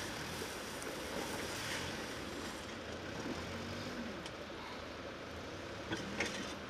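Fire hose spraying a water jet onto burnt truck cargo as a steady hiss, with an engine running in the background. Two short knocks come near the end.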